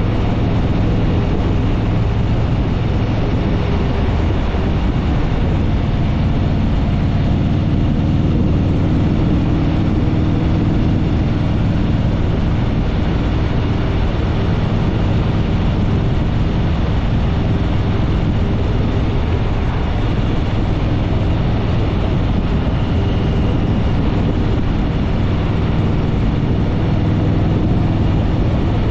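Harley-Davidson Fat Boy Lo's V-twin engine running steadily at cruising speed, with wind rush over the microphone.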